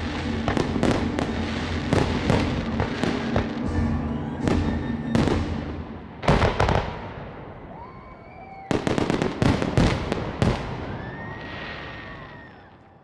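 Aerial fireworks display: rapid volleys of shell bursts and crackle, with a loud cluster of bangs about six seconds in and another dense run from about nine to ten and a half seconds. A few whistles rise and fall between the volleys, and the sound fades out near the end.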